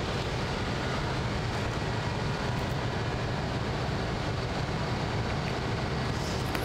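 Steady low rumble of city street ambience, like distant traffic, with no distinct events.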